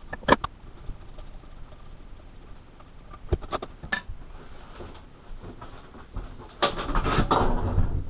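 Handling noises of a porcelain toilet tank and tools in a bathtub: a few sharp clicks and knocks in the first half, then, from near the end, a louder rough scraping and rumbling as the tank is tipped over onto its side.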